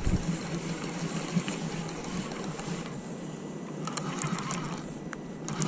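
Steady hiss of rain and wind on the microphone. In the second half come short clicks and rattles from a spinning reel as it is handled and its crank turned.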